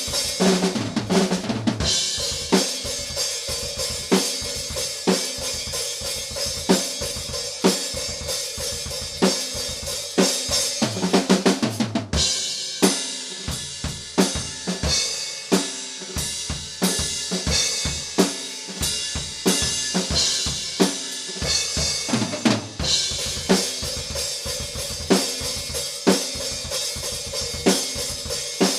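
Drum kit played alone in a metal groove: fast single-pedal bass drum under snare, hi-hat and cymbal hits, with a rapid fill about eleven seconds in.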